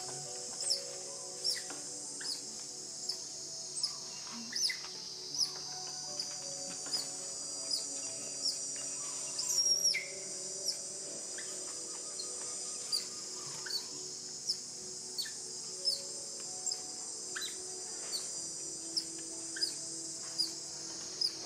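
A bird chirping repeatedly, a short sharp chirp about every second, over a steady high insect hiss.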